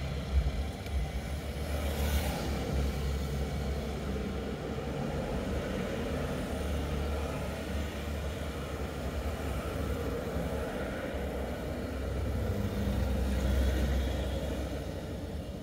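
Road traffic going past: auto-rickshaws, cars and motorbikes on a two-lane road, with a steady low rumble. The traffic swells about two seconds in and again near the end as vehicles pass close by.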